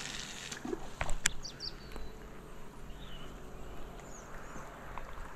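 Baitcasting reel handled as a lure retrieve begins: two sharp clicks about a second in, with a few short bird chirps over a faint steady background.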